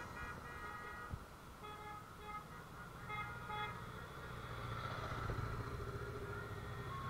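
A horn sounds quick runs of short electronic beeping toots in the first half. Then the low engine rumble of an approaching Honda Gold Wing parade trike grows louder.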